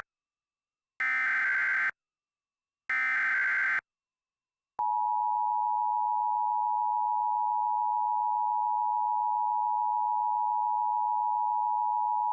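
Emergency Alert System SAME header: two harsh one-second digital data bursts about a second apart, then about five seconds in the steady two-tone EAS attention signal, which holds unbroken.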